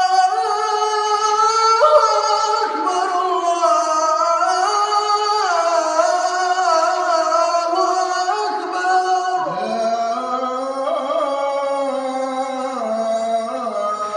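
A single voice reciting the Quran in melodic, drawn-out chant, holding long notes that waver and step between pitches. About nine and a half seconds in the voice drops to a lower pitch and carries on.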